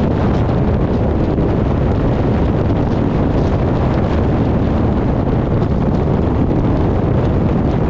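Wind buffeting the microphone: a loud, steady, deep rumbling noise.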